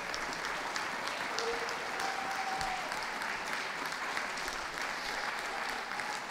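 Audience applauding steadily, a dense patter of many hands clapping at once.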